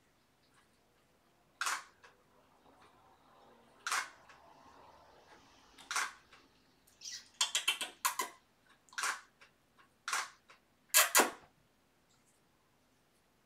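DSLR camera shutter firing: single shots every second or two, with a quick burst of several frames in the middle and a last pair of loud clicks close together near the end.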